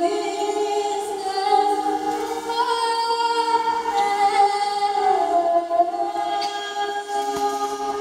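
Female voices singing a slow, wavering melody over steady held drone notes from an organistrum, the medieval two-player hurdy-gurdy.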